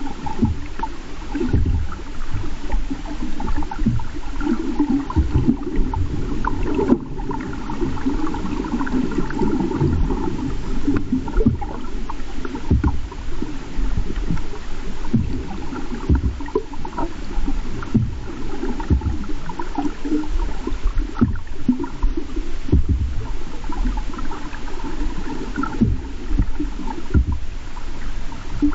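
Underwater sound of shallow lake water moving among rocks, picked up by a submerged camera: a continuous wash with frequent irregular low knocks and surges.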